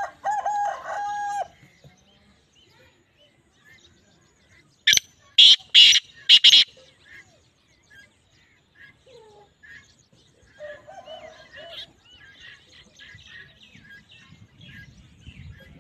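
Caged black francolin calling: four loud, harsh notes in quick succession about five seconds in. A short steady-pitched call sounds at the very start, and small birds chirp faintly throughout.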